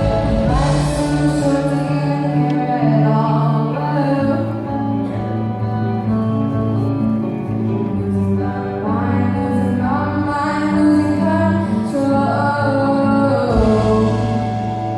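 A woman singing a song with instrumental accompaniment, the voice phrasing in long held notes over steady sustained chords.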